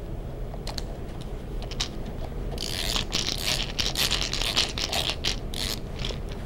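Screwdriver backing the screw out of the bottom of a Hogue grip on a Smith & Wesson revolver: a few scattered clicks, then a dense run of quick scratchy clicks from about two and a half to six seconds in.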